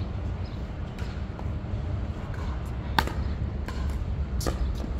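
Pickleball rally: sharp pops of the plastic ball struck by paddles, the loudest about three seconds in and another a second and a half later, with a few fainter taps, over a low steady rumble.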